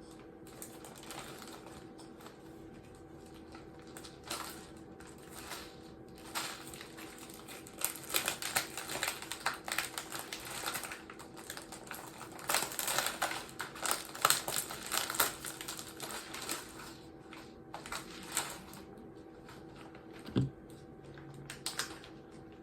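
Hands rummaging through loose small plastic craft pieces such as googly eyes: a rapid, irregular run of light clicks and rattles, thickest in the middle, with a faint steady hum underneath.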